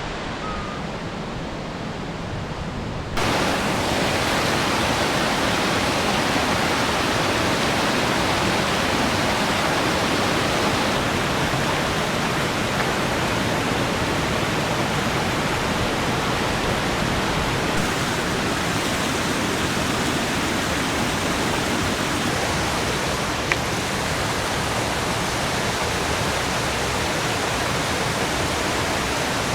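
Fast mountain stream rushing through a gorge, a steady wash of water noise. It starts quieter and jumps suddenly louder about three seconds in.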